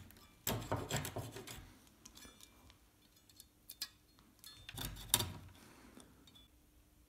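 Fret saw with a fine blade cutting small wooden parts in two short runs of quick rasping strokes, about half a second in and again around five seconds in, with light clicks and taps of the wood being handled between them.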